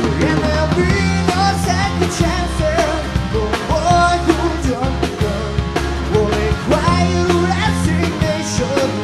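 Rock music with a singing voice and drums.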